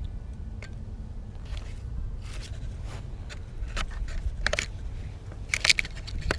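A low steady rumble with a string of short scrapes and clicks. The loudest is a quick cluster near the end.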